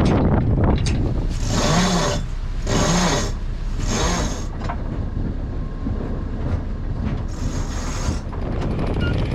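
Wind buffeting the microphone and water rushing past a sailing yacht's hull under sail: a steady low rumble with four louder hissing surges, three close together in the first half and one near the end.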